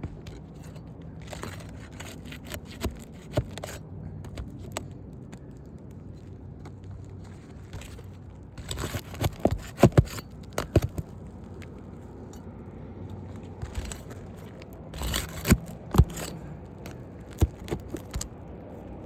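Scraping, crackling and sharp knocks of hand work on a damaged three-tab roof shingle being worked loose for removal, coming in three bursts, the loudest knocks in the middle and near the end.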